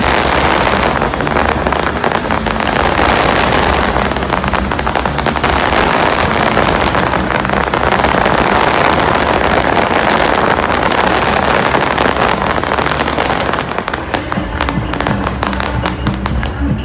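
Fireworks crackling in a dense, continuous barrage of rapid pops over music. The crackle thins out about three seconds before the end, and the music comes through more clearly.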